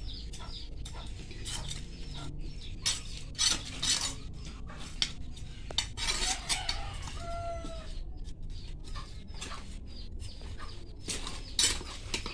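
A small hand trowel scraping and knocking against the inside of a terracotta clay pot as potting soil is dug out, in quick repeated strokes. A chicken calls in the background about seven seconds in.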